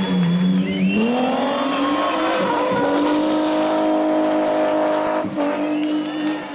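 BMW 3 Series (E36) race car engine held at high revs while the car slides sideways, rear tyres squealing. The revs dip, then climb about a second in and hold steady, with a brief lift around five seconds in.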